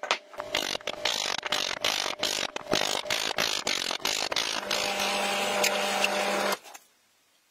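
Rapid, irregular knocking and scraping of tools working wood, then a drill press boring into wood with a Forstner bit, its motor hum steady under the cutting noise, stopping suddenly about two-thirds of the way through.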